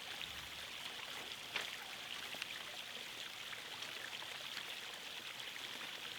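Steady background hiss, with a few faint soft clicks, the clearest about a second and a half in.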